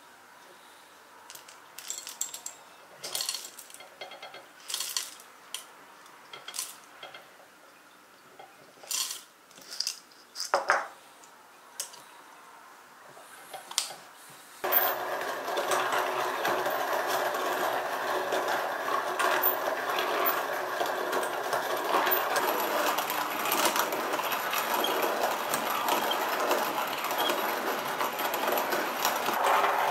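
Kalita hand-cranked coffee mill: scattered clicks and clinks as the mill is handled, then about halfway through a steady crunching starts suddenly as coffee beans are ground by turning the crank.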